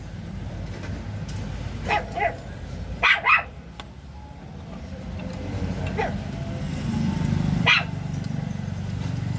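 A dog barking six times, some in quick pairs, over a steady low hum.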